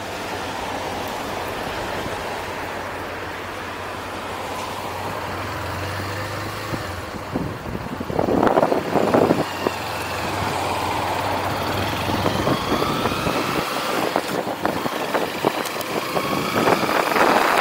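Motorcycle engine idling steadily, then pulling away about twelve seconds in with its pitch rising as it accelerates through the gears. Wind buffets the microphone in gusts about eight seconds in and again near the end.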